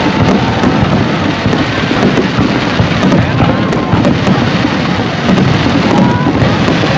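Aerial fireworks shells bursting in a dense, continuous barrage, with many sharp cracks and bangs layered over a loud rumbling wash.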